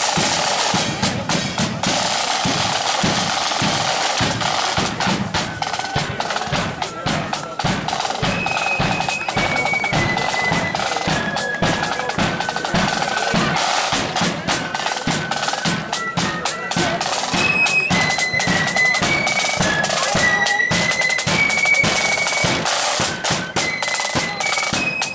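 Marching flute band playing: snare drums and a bass drum beat a marching rhythm, joined about five seconds in by flutes playing a high melody.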